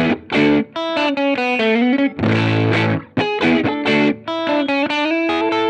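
Electric guitar, a Fender Jazzmaster with Lawler Blade Master pickups, played through a Ground Control Serpens optical compressor with its blend turned up, into a Strymon Iridium amp simulator, giving a lightly driven, slightly darker tone. A strummed chord about two seconds in is followed by picked single-note phrases, ending on a held note.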